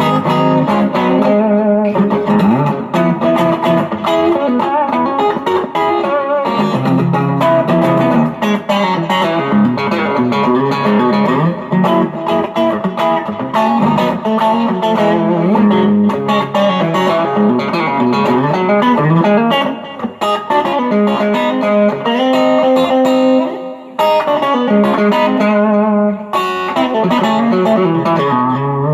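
M-Musi Virgo Fusion electric guitar played continuously through overdrive with a boost pedal engaged, on the middle-position split-coil pickup setting, which has a Strat-like tone. The playing breaks briefly twice, about twenty and twenty-four seconds in.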